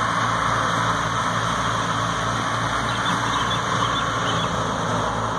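Belarus 510 tractor powering a stationary wheat thresher, both running steadily under load: a low engine hum beneath a loud, even rushing whir from the threshing machine.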